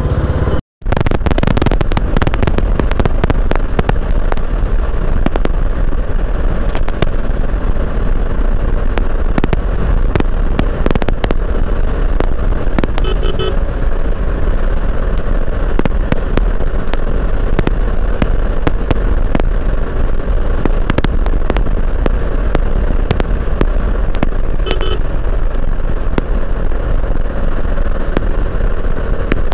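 Wind buffeting and crackling on the rider's microphone over a Bajaj Dominar 400 motorcycle's single-cylinder engine running steadily on the move. The sound cuts out for a moment about a second in. Two short beeps come, one about halfway through and one near the end.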